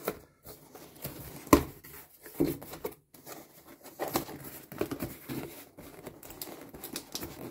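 Cardboard shipping box being opened by hand: flaps scraping and rustling, with brown packing paper crinkling inside. One sharp knock about a second and a half in.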